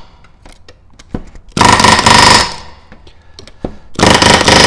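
Pneumatic rivet gun back-riveting aluminium rivets into an aircraft wing tank skin: two short bursts of rapid hammering, one a little past a second and a half in and one near the end, each under a second long.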